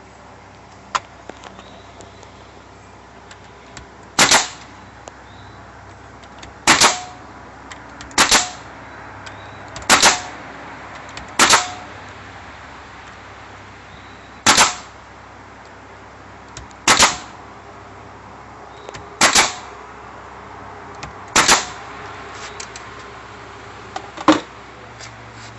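Consumer firework shells firing from HDPE mortar tubes in a rack: a series of about ten sharp, loud reports, one every two seconds or so.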